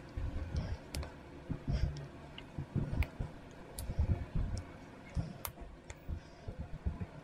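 Small grey plastic parts of a Panther tank assembly-puzzle model clicking and knocking as they are handled and pressed together by hand. Irregular sharp clicks come among duller bumps.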